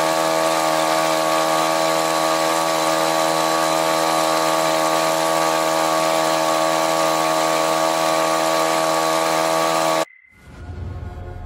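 A small engine running steadily at high revs, holding one even pitch, then cutting off abruptly about ten seconds in.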